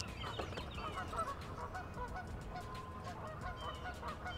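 Faint honking of a flock of geese: many short calls overlapping several times a second.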